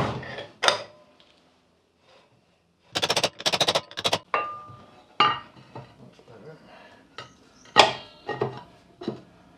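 Small metal parts and hand tools clinking and rattling on a workbench. About three seconds in comes a quick rattling run of ticks, followed by separate sharp metallic clinks with a short ring, the loudest near the end.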